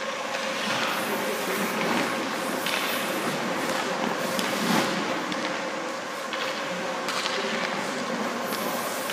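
Hockey goalie's skate blades scraping the ice in several short pushes and slides, over a steady hissing rumble of rink machinery with a faint constant hum.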